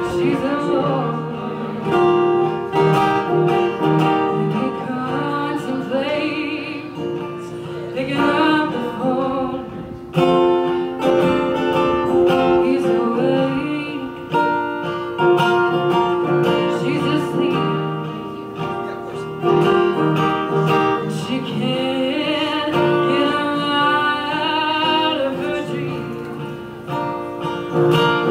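A woman singing to her own acoustic guitar, the guitar played in chords under the melody; her voice wavers with vibrato on held notes.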